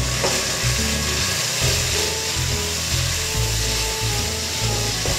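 Tomato-and-spice masala sizzling in hot oil in a kadai while a spatula stirs and scrapes across the pan, with background music playing.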